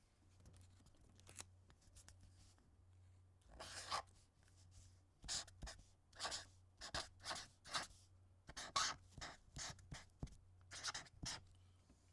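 A marker drawn across a surface in a series of short, scratchy strokes, irregularly spaced, beginning about three and a half seconds in. A low steady hum runs underneath.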